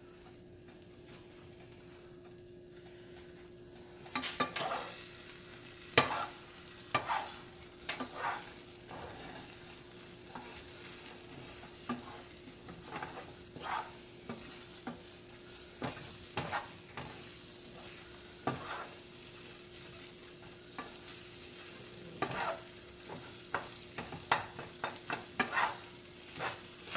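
Wooden spoon scraping and pushing scrambled eggs around a hot nonstick skillet, with irregular strokes and light knocks against the pan over a soft sizzle as the eggs set. The first few seconds hold only the faint sizzle; the stirring starts about four seconds in.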